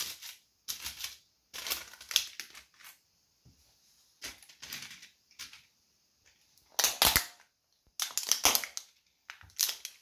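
Model train cars cracking and snapping under a sneaker sole being pressed down on them, in repeated bursts of crunching and sharp cracks, the loudest about seven and eight and a half seconds in.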